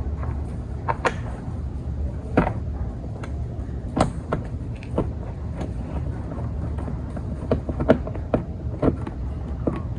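Irregular clicks and taps of a screw and screwdriver working a rear reflector into a plastic bumper cover, over a steady low hum.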